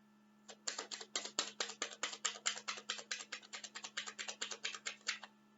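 A quick, even run of sharp clicks, about seven a second, lasting about five seconds.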